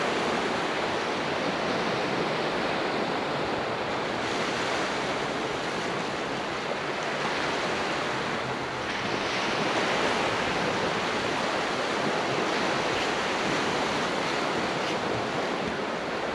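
Sea waves washing onto the shore in a steady rush of surf, swelling a little just past the middle.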